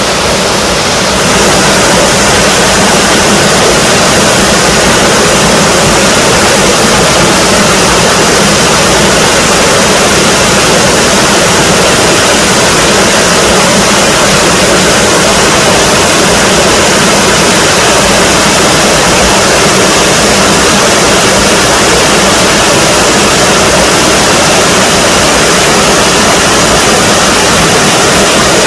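Small waterfall in a mountain stream, water pouring in a loud, steady rush that gets a little louder about a second in.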